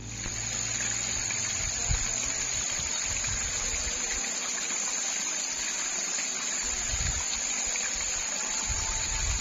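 Night field ambience: insects keeping up a continuous high-pitched drone over a steady rushing hiss, with a few low thumps about two seconds in, around seven seconds and near the end.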